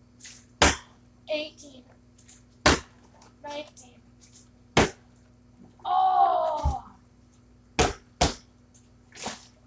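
Plastic milk jug being flipped and landing on a concrete floor: five sharp knocks about two seconds apart, the last two close together. About six seconds in comes a short groaning voice, and a steady low hum runs underneath.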